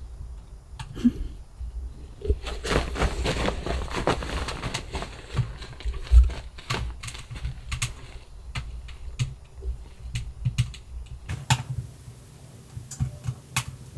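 A dog shifting about on a wooden window ledge and bedding: irregular light clicks and taps with fabric rustling, thickest a few seconds in.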